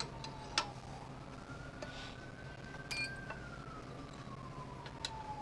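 A siren wailing: a single tone falling, then rising slowly for about two seconds and falling again, faint over a low steady hum. A few sharp clicks sound over it.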